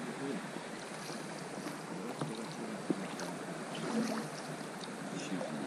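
River water gurgling and lapping around an inflatable rowing boat as it moves along, with two light knocks about two and three seconds in.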